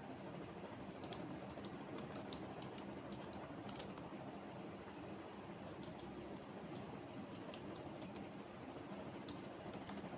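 Computer keyboard typing: irregular keystrokes in short runs, with pauses of a second or two between them, over a steady low background hum.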